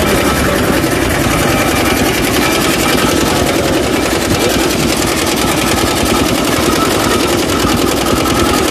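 Sugarcane juice crushing machine running: its drive, belt, toothed gears and ribbed steel rollers turning with a fast, even mechanical clatter at a constant level.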